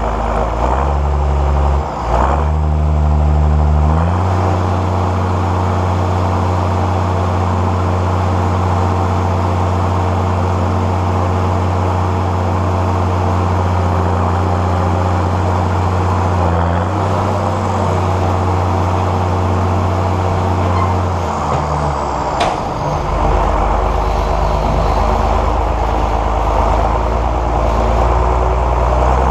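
John Deere 6910S tractor's diesel engine running under steady load. Its note shifts in steps several times, about two and four seconds in, then around halfway, and twice more near the end.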